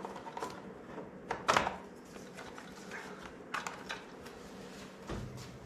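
Scattered clicks and light knocks of hand tools and metal engine parts being handled during disassembly, with one sharper knock about a second and a half in.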